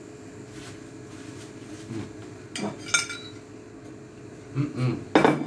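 A metal spoon clinking and knocking against a ceramic plate as the plate is handled: a few separate clinks, with the heaviest knocks near the end.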